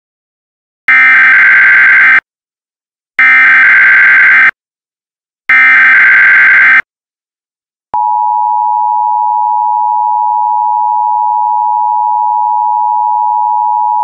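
Emergency Alert System tones: three harsh digital data bursts of the SAME header, each a little over a second long with short gaps between them, then about eight seconds in the steady two-tone EAS attention signal (853 and 960 Hz together) starts and holds.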